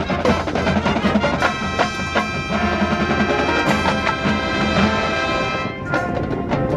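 High school marching band playing, with brass and percussion. The brass holds a long chord that breaks off near the end, and sharp percussion hits follow.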